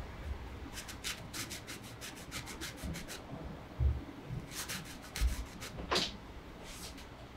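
Flat paintbrush stroking water-soluble oil paint onto a textured canvas: a quick run of short brushing strokes, about five a second, for a couple of seconds, then a few slower single strokes, with two soft low bumps in between.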